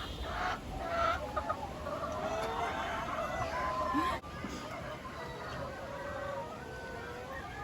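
Laying hens in a poultry house clucking, many calls overlapping at once.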